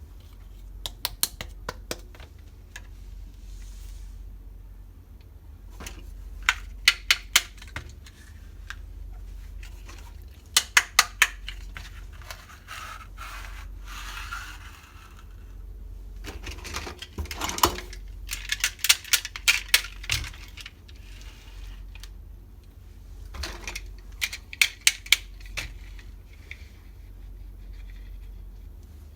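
Small stainless-steel toy kitchen pieces clinking and tapping together as they are handled, in several quick clusters of sharp clicks with a stretch of scraping between them.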